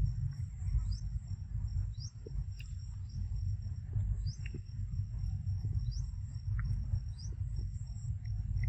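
Insect calling: a steady high buzz broken by short rising chirps about once a second, over a steady low rumble.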